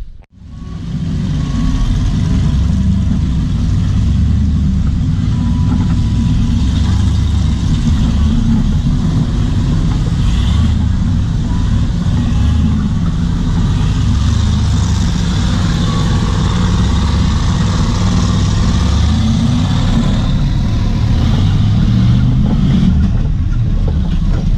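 Off-road vehicle engine running steadily as it drives along a rough dirt trail, a continuous low drone.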